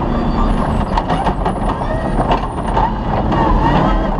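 Off-road rally car engine running hard, with sharp knocks and rattles over rough ground and a thin high whistle for about two seconds.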